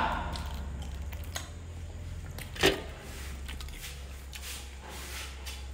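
Faint eating and food-handling noises: light clicks and rustles from sandwiches being handled and eaten, with one sharper click about two and a half seconds in, over a low steady hum.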